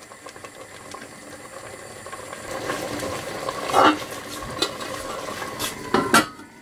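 Thick tomato curry bubbling and sizzling in a stainless steel pot on a low gas flame. About four seconds in the stainless steel lid clinks as it is picked up, and near the end it clatters twice as it is set down on the pot.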